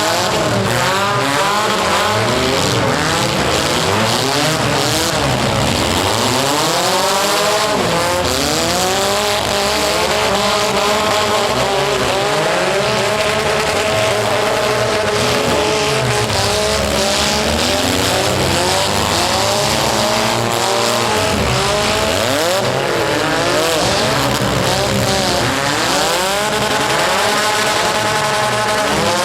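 Several compact cars' engines revving hard at once in a demolition derby, pitches rising and falling over and over as the cars accelerate and back off, with tire squeal mixed in.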